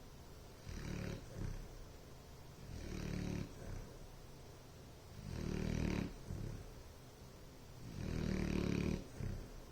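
Bloodhound snoring: a low snore about every two and a half seconds, four in all, with quieter breathing between.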